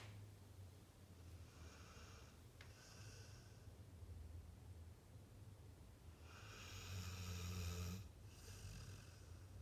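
Sleeping pit bull snoring: two soft breaths in the first few seconds, then a longer, louder snoring breath about six to eight seconds in and a shorter one after it.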